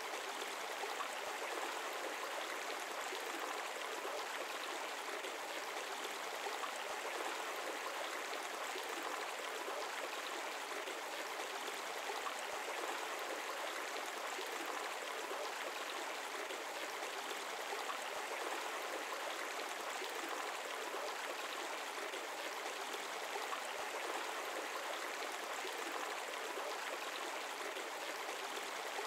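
Shallow stream water running steadily: an even, unbroken babble.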